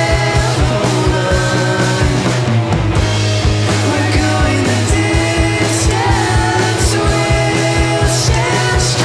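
Live rock band playing: electric guitars, bass guitar and drum kit, with a steady, even drum beat.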